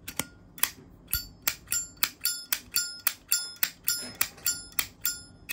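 Zippo lighter's metal lid being snapped open and shut over and over, a rapid run of sharp ringing metallic clicks, about three a second.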